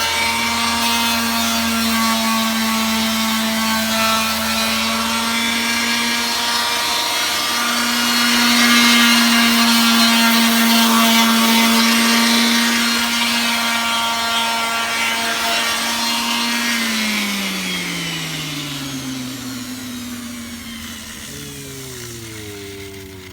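Electric power tool motor running at steady speed with a noisy hiss of work over it, growing a little louder about eight seconds in, then switched off about sixteen seconds in and winding down with a long falling pitch.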